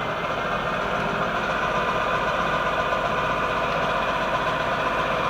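Monarch EE toolroom lathe running under power through its variable-speed drive: a steady mechanical whine of spindle and drive with several fine tones, growing slightly louder over the first couple of seconds.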